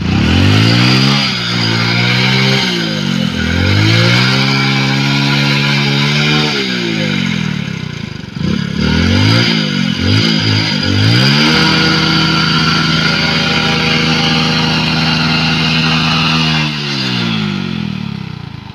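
Hero Splendor Plus motorcycle's single-cylinder four-stroke engine revving hard under load as the bike struggles through deep mud. The engine revs rise and fall repeatedly, with a few quick blips in the middle, then are held high for several seconds and drop away near the end.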